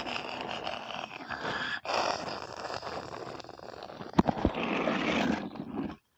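Handling noise: the phone's microphone rubbing and jostling against cloth as it is moved, a dense rustle with one sharp knock about four seconds in, cutting off suddenly just before the end.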